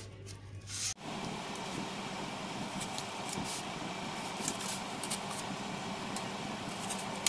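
About a second in, a steady mechanical hum starts and runs on, with faint, irregular scratchy sounds over it from hands working pieces of thermocol foam.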